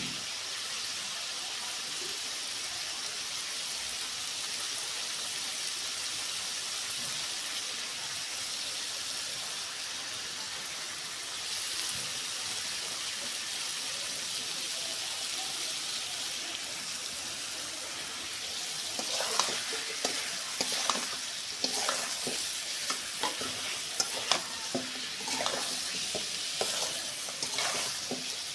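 Kaleji (liver) sizzling steadily as it fries. From about two-thirds of the way in, a spatula stirs and scrapes it, with many sharp irregular clinks and scrapes over the frying hiss.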